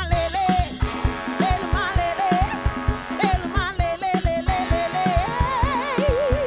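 Live Afro-funk band: a woman sings a melody with wide vibrato over a fast, steady drum beat, guitar and held chords.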